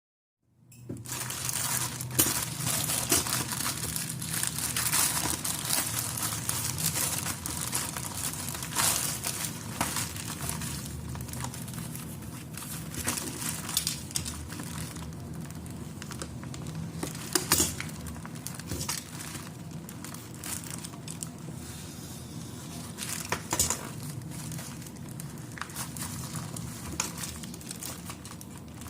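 Plastic parcel packaging crinkling as it is handled and opened by hand, with many sharp crackles throughout.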